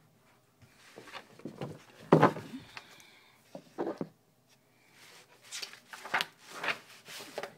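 Handling noise on a wooden table: a loud knock about two seconds in and another near four seconds, then a sheet of paper being slid and rustled near the end.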